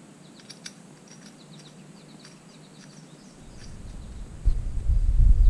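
Small birds chirping faintly in the background, with a couple of light metallic clicks about half a second in as the chrome highway-peg parts and Allen wrench are handled. About three and a half seconds in, a low rumble sets in and quickly grows loud, the loudest sound here.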